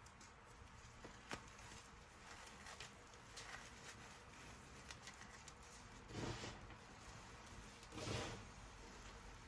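Reformed chalk being crunched: a few faint crackles, then two louder short crunches about six and eight seconds in.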